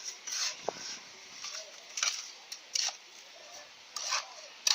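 Short scraping strokes, about five, irregularly spaced, from masonry work on a wall.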